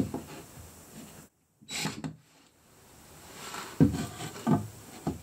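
Wooden strips and a plywood spacer knocking and scraping against the inside of a wooden cabinet carcass as they are set in place: a handful of separate knocks and rubs.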